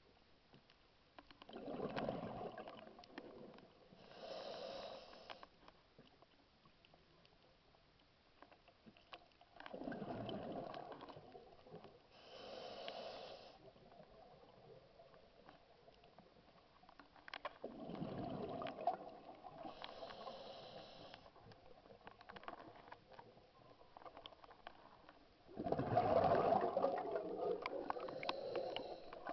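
A scuba diver breathing through a regulator underwater: four slow breaths about eight seconds apart, each a bubbling rush of exhaled air followed by the hiss of the regulator on the inhale. The last exhale, near the end, is the loudest.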